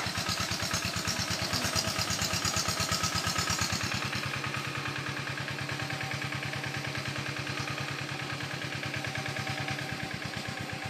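Quick G1000 hand tractor's single-cylinder diesel engine running with a fast, even chug, slowly getting quieter over the last few seconds.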